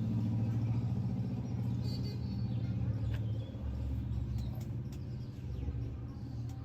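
A steady low rumble with an even hum, like a motor running, and a few faint clicks about three seconds in.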